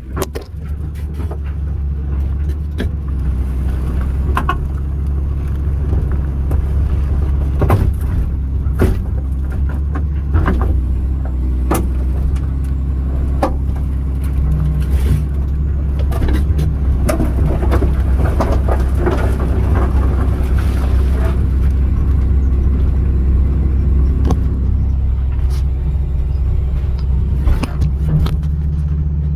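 John Deere 200LC (Hitachi EX200) excavator's diesel engine running steadily under load while it tears out a tree, with repeated cracks, snaps and knocks from branches and wood breaking and being shoved.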